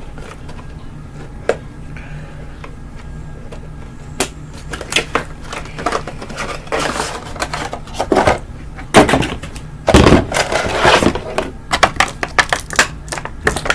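Action-figure box being opened by hand: cardboard and plastic packaging clicking, crinkling and scraping. A few scattered clicks at first, then busy handling from about four seconds in, with the loudest rustling rushes around nine to eleven seconds in.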